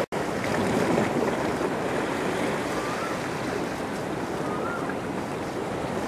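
Storm-driven waves washing and breaking on open water, a steady rushing noise, with wind buffeting the microphone. The sound drops out for an instant at the very start.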